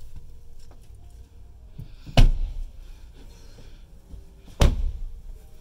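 Two heavy thuds from the doors of a 2019 Porsche Macan S, about two and a half seconds apart, as a door is opened and swung shut.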